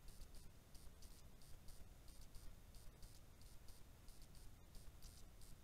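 Near silence with faint high-pitched ticks repeating about four times a second over a low rumble.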